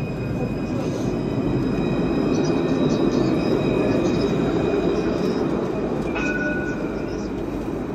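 Tram rolling past close by on street track, its running rumble building and then easing. A faint high squeal of wheels on rail comes in about six seconds in.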